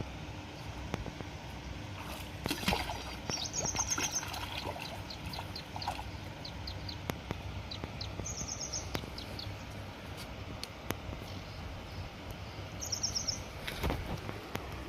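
Outdoor ambience with a bird's short, rapid high-pitched trills, heard three times, over a steady low rumble and scattered faint clicks.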